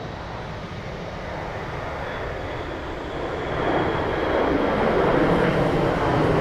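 Jet airliner engines, a steady rush that swells louder over the second half.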